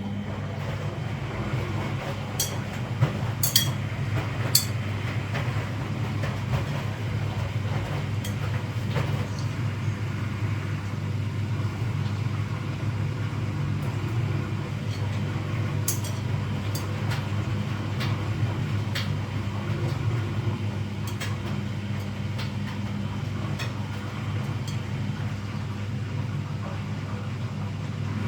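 Front-loading washing machine running with a steady low hum and rumble, with a few sharp clicks in the first few seconds and again later.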